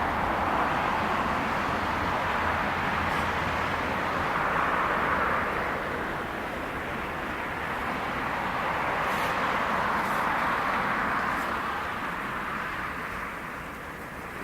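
Four-engine jet noise from a Boeing 747-400 after takeoff: a steady rushing roar that swells and ebbs, then fades near the end as the aircraft climbs away.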